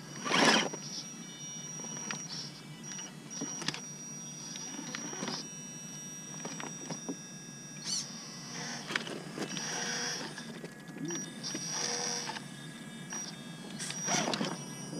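Electric drive motor and geartrain of a Gmade GOM RC rock crawler whining under load as it crawls over rocks, the whine swelling louder twice near the middle. A few sharp knocks of the crawler against the rock, one right at the start, one about eight seconds in and one near the end.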